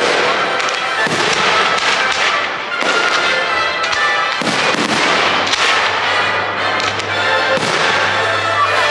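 Aerial fireworks display: shells bursting overhead, many sharp bangs in quick succession with no let-up, heard over music.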